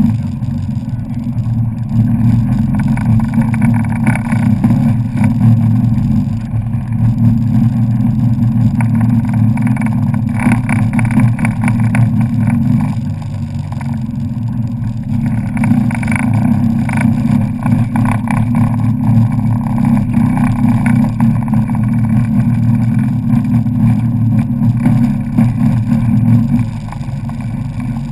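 Personal watercraft engine running steadily under way across choppy water, with water noise over the hull. The sound drops a little about halfway through and again near the end.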